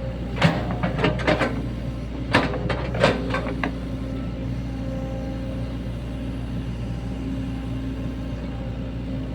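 Sany SY75 mini excavator's diesel engine running steadily, with a quick run of sharp metal knocks and clanks in the first few seconds.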